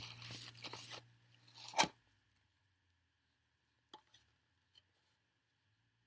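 Takeout food packaging rustling and crinkling as it is handled for about two seconds, ending in one sharp crackle, then a few faint clicks.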